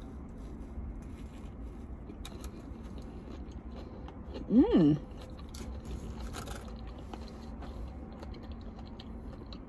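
A person biting into and chewing a fried fish sandwich, with soft crunching and mouth sounds. About halfway through comes a short hummed "mmm" of enjoyment, over a steady low hum.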